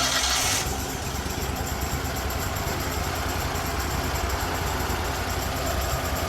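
Red Roo SHP400 stump grinder's engine running steadily, with a short rush of noise right at the start.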